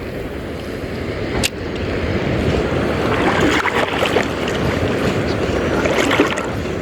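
Steady rumbling noise of a small boat on the sea, with wind on the microphone, building over the first couple of seconds. A single sharp click comes about a second and a half in.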